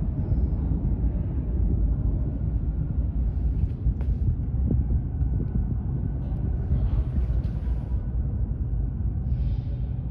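Steady low rumble of a Bombardier T1 subway train in the station, with a few faint hisses now and then.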